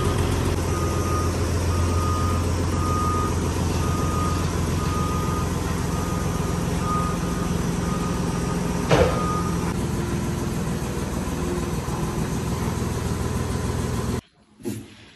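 A vehicle's engine running steadily while its reversing alarm beeps on one pitch roughly once a second. There is one sharp knock about nine seconds in. The beeping stops about a second later, and the engine sound cuts off abruptly just before the end.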